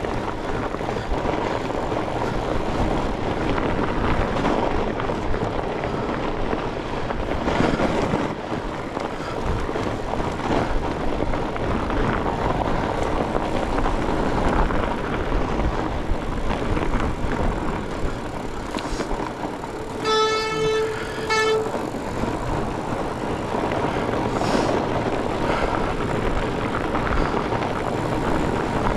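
Continuous rumble and rushing noise of a fat bike riding over a frozen, rutted trail, with wind on the microphone. About two-thirds of the way in, the bike gives a short high squeal, broken once and lasting about a second and a half.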